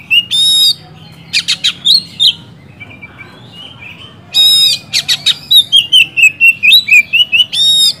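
Oriental magpie-robin (kacer) singing loudly and energetically: fast runs of short, high notes mixed with sharper, harsher calls, with a pause of about two seconds midway.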